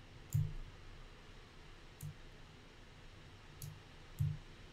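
Computer mouse clicking four times at uneven intervals, over faint steady room hiss.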